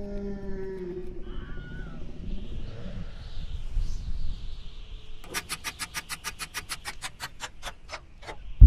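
A short hummed voice, then, about five seconds in, a run of some fifteen sharp clicks, about five a second at first and slowing.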